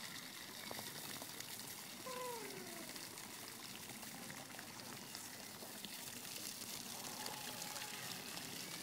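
Steady outdoor background hiss, with a short falling call about two seconds in and a faint held tone a little after seven seconds.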